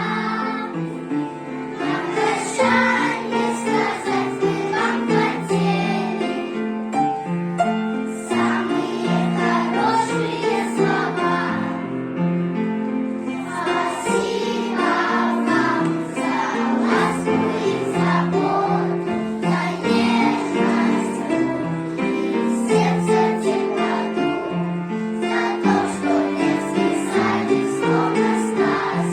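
A choir singing a song over steady instrumental accompaniment.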